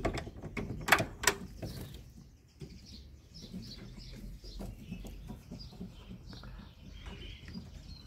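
Clicks and knocks of a small cage door being opened, four sharp ones in the first two seconds, then soft, quick chirps from the canaries in the cage.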